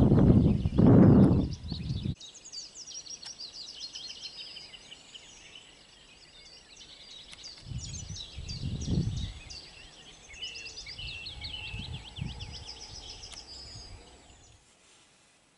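Songbirds singing steadily in rapid, high, twittering phrases. A loud low rumbling noise covers the first two seconds and cuts off suddenly, and softer low rumbles swell up around the middle.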